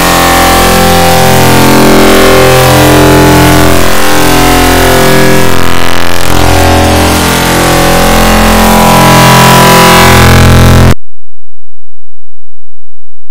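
Very loud, heavily distorted music: many overlapping copies of the same song stacked into one clipped cacophony of sustained tones. It cuts off abruptly about eleven seconds in.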